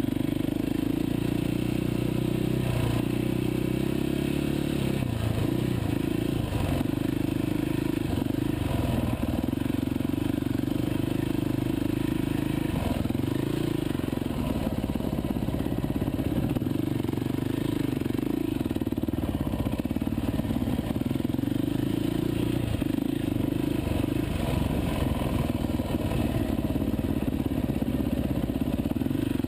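Off-road dirt bike engine running at low to moderate revs on a rough trail, the pitch rising and falling as the throttle is worked, with some clatter from the bike.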